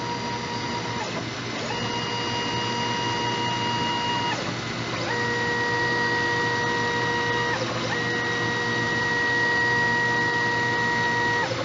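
X-Y axis drive motors of an ACE KISS 102 selective soldering machine moving the solder pot along its rails: a steady mechanical whine in about four runs of two to three seconds each, stopping briefly between moves. The pitch shifts a little from one move to the next.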